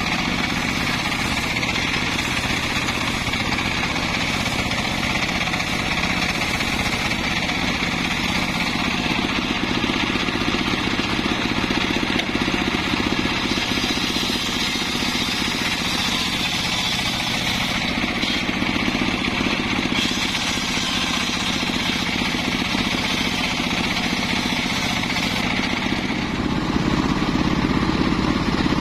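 Homemade circular sawmill running, its large engine-driven blade steadily sawing through mahogany planks, with the motor's drone under the cutting noise. The sound shifts and grows a little louder about 26 seconds in.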